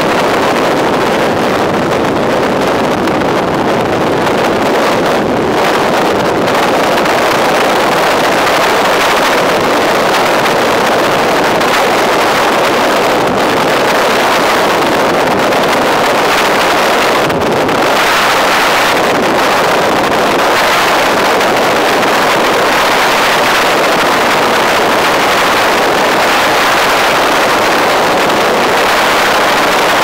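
Helicopter in flight, heard as a loud, steady rush of engine and air noise, with wind buffeting the microphone.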